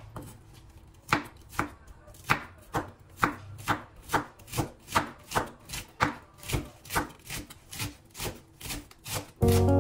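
Kitchen knife chopping on a cutting board in a steady rhythm of about two to three strokes a second, with music coming back in near the end.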